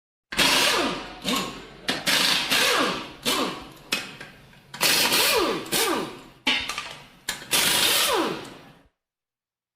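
Pneumatic impact wrench fired in about ten short bursts, each a sudden hiss of air with a whine that falls in pitch as the motor spins down.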